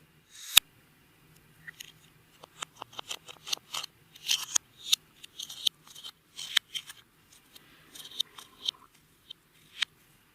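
Slime being squeezed and stretched by hand, giving a sharp click about half a second in and then a long run of irregular sticky clicks and crackles.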